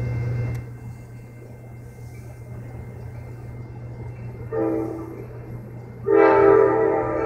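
Approaching Amtrak train's air horn sounding. The end of one blast trails off about half a second in, a short blast comes at about four and a half seconds, and a louder long blast begins about six seconds in. A steady low hum runs underneath.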